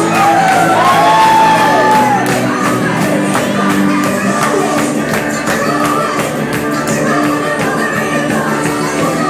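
Upbeat music with singing and a steady beat playing for a dance routine in a large hall, with a few whooping shouts in the first two seconds.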